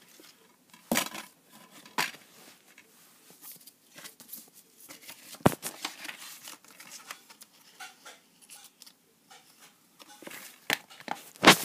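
Plastic DVD cases being handled and opened: several sharp clicks and knocks, the loudest near the end, with soft rustling in between.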